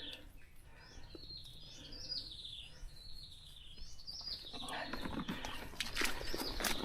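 A bird calling a short falling chirp over and over, about twice a second, then from about four and a half seconds in, irregular footsteps and scuffing on wet ground grow louder.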